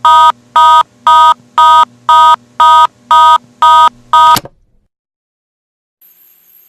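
Loud electronic beeping, about two short beeps a second, each on a steady pitch, stopping abruptly about four seconds in and followed by silence.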